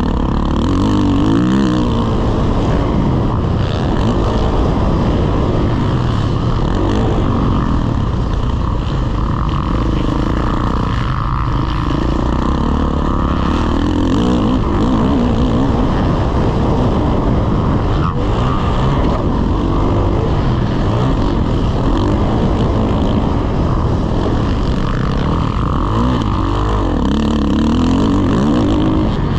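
The rider's own dirt bike engine, heard from on the bike while riding a motocross track. It revs up and down repeatedly as he accelerates, shifts and backs off through the corners and jumps.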